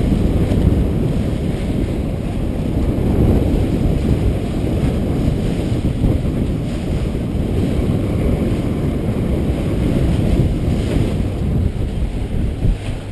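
Strong wind buffeting the microphone over the rushing of rough seas around a sailing catamaran under way, a dense, rumbling noise that swells and eases.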